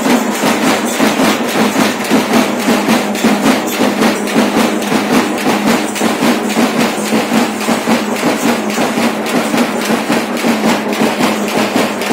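Fast, steady drumming: hard percussive strokes repeated in an even, rapid rhythm, with no pause.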